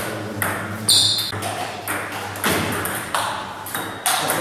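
Table tennis rally: the ball clicking sharply off the bats and the table about twice a second, each hit echoing briefly in the hall. The loudest hit, about a second in, rings briefly.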